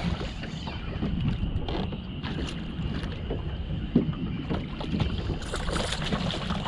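Wind buffeting the microphone in a small fishing boat, a strong uneven rumble, with scattered small knocks and one sharper knock about four seconds in.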